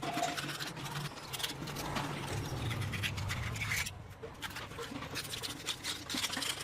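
Irregular scraping and scratching on a hard surface, with a low hum under it in the first few seconds.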